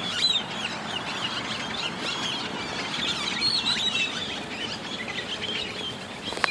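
Small birds chirping, many short calls overlapping into a dense chorus.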